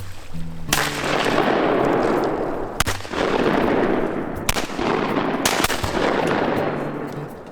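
Shotgun fire at ducks: about five shots, each a sharp crack trailing off into a long fading report.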